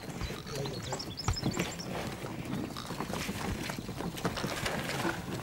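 Zebu ox cart travelling along a dirt track: a steady run of knocks and rattles from the wooden cart and the oxen's hooves.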